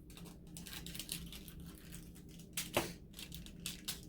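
Crinkling of a small plastic bag of resin diamond-painting drills being handled, with a run of light clicks and crackles and one sharper click a little under three seconds in.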